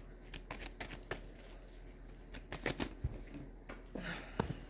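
Tarot cards being shuffled by hand: a run of irregular soft clicks and flicks of card on card, a few sharper than the rest.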